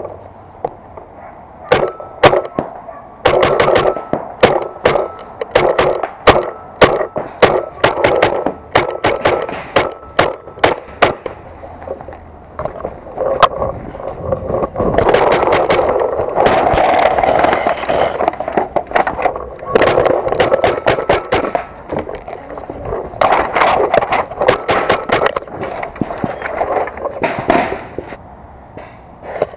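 Paintball marker firing in quick, uneven strings of sharp pops, loud and close. In the middle the shots give way to a stretch of rough handling and movement noise, and the firing picks up again near the end.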